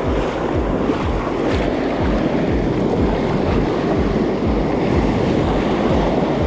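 Shallow surf washing and churning around a microphone held just above the water, with wind buffeting the microphone in low rumbles.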